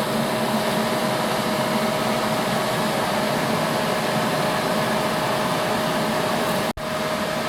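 Forge running: a steady rush of air with a thin, steady whine, cutting out for an instant about three-quarters of the way through.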